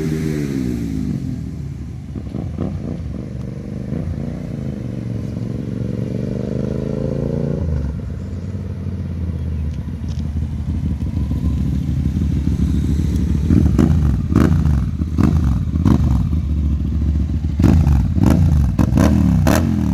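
Hyosung GT650R's 650 cc V-twin engine being revved: the revs fall away at the start, climb and hold for a few seconds before dropping abruptly to idle, then a run of quick throttle blips comes in the last several seconds.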